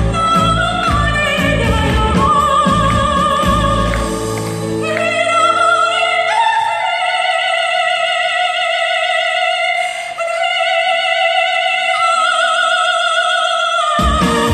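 Soprano singing with wide vibrato over a live band. About five seconds in the band's low end drops away and she holds long high notes almost alone, and the band comes back in near the end.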